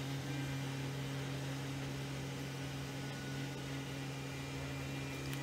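Steady low mechanical hum, such as a fan or small motor running, holding a constant pitch with no change.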